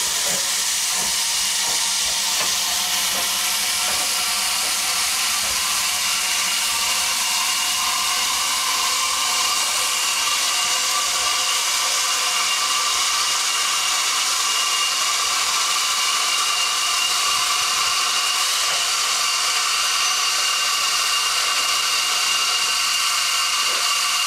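Maunsell U class 2-6-0 steam locomotive hissing steadily as it comes to a stand, with a few faint knocks in the first few seconds.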